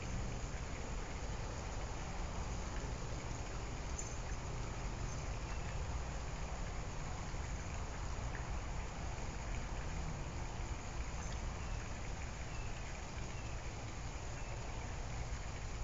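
Steady background hiss, with a few faint light ticks.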